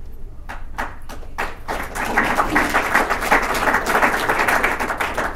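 Audience clapping for a speaker called up: a few scattered claps at first, filling in to steady applause from about two seconds in.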